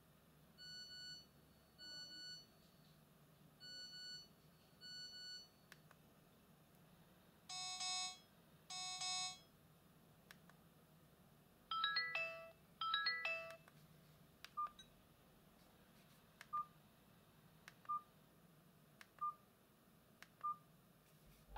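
Built-in ringtones of a myPhone Halo Easy basic mobile phone played one after another through its small speaker, fairly faint. A repeating double ring, then two buzzy tones, then two quick falling chirps, then single short beeps about every second and a half.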